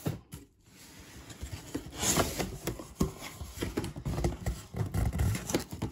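Cardboard shipping box being handled and opened on a wooden table: irregular knocks and scrapes, with a burst of rustling packing material about two seconds in and a run of heavier thuds near the end.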